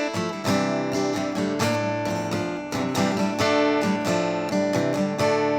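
Fender Paramount PM-1 acoustic guitar strummed in a steady chord pattern, heard amplified through its pickup and a PA speaker.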